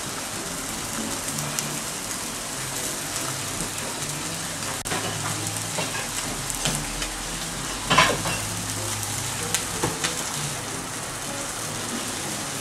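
Parmesan-breaded chicken breasts frying in a nonstick skillet: a steady sizzling hiss with a few light clicks and pops.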